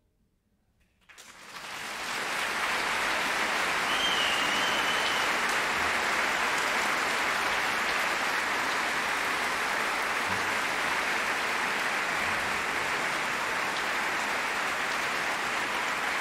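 Audience applauding in a concert hall: the clapping starts about a second in, swells quickly and holds steady. A short high whistle cuts through about four seconds in.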